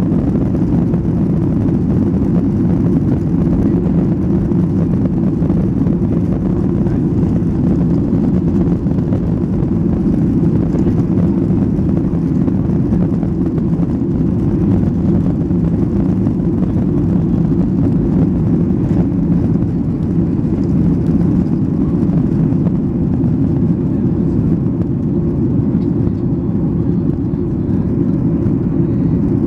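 Boeing 737-800's CFM56-7B jet engines at take-off thrust, heard from inside the cabin during the take-off roll and lift-off. It is a steady, loud noise, heavy in the low end.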